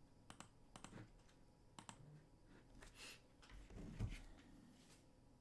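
Faint, scattered clicks of typing on a computer keyboard, with a soft thump about four seconds in.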